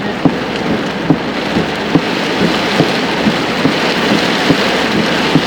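Heavy rain beating down on a vehicle: a steady hiss with scattered louder drop strikes, a few each second.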